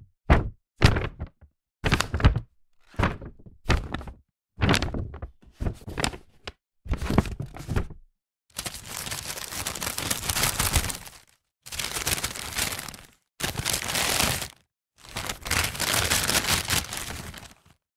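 A paper bag being handled: a run of short, sharp rustles and snaps, about one or two a second, then from about eight seconds in, four longer stretches of crinkling and crumpling paper with brief gaps between them.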